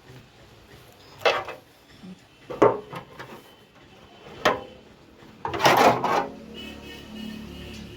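Hard objects knocked and scraped against each other about four times, the longest scrape about two-thirds of the way in, as when parts are handled and set down.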